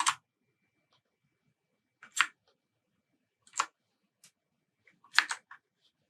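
Computer mouse button clicking: single sharp clicks a second or two apart, with a quick double click near the end.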